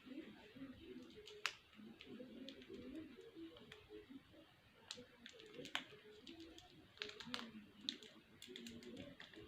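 Faint, irregular light clicks and taps, a few a second at most, over a low murmur.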